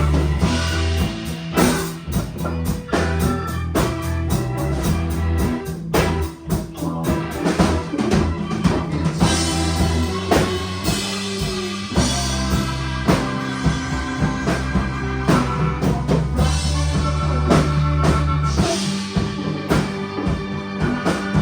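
A rock band playing live: drum kit keeping a steady beat under bass, guitar and keyboard.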